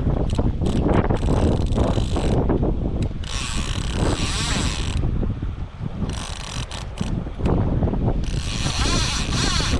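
Fly reel's click-and-pawl ratchet running in four spells, the longest lasting over a second, while a hooked fish is played on a bent rod. Wind buffets the microphone throughout.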